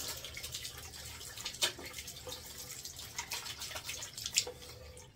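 Bathroom tap running into a sink while hands are rinsed under it, with irregular splashes. The water cuts off near the end.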